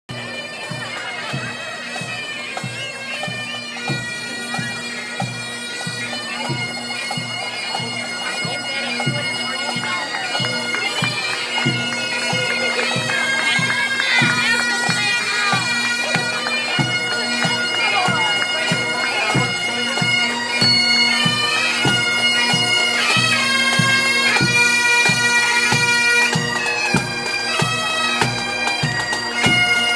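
Pipe band of Highland bagpipes playing a tune over their steady drone, with a bass drum beating a regular march rhythm beneath. The band grows gradually louder as it approaches.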